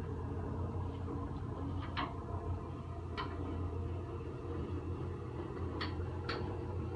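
Motorised spinal decompression table running with a steady low hum, with a few sharp clicks scattered through it.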